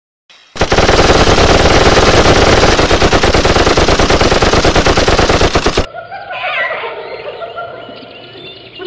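Automatic gunfire: a long, rapid, continuous burst starting about half a second in and lasting about five seconds, then cutting off abruptly.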